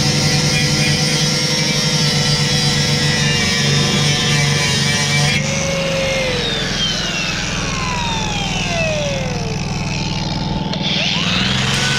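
Power tool motor running, then switched off about five seconds in and winding down with a long falling whine, starting up again near the end, over a steady low machine hum.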